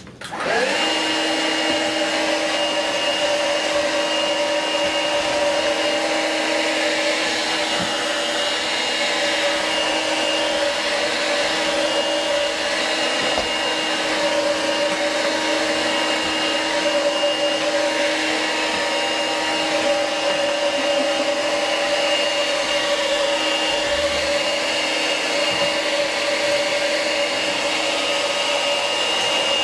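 Stick vacuum cleaner switched on, its motor spinning up with a brief rising whine and then running at a steady pitch with a constant high whine throughout.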